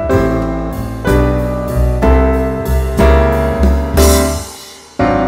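Background piano music, notes struck about every half second. It fades briefly and cuts back in abruptly near the end.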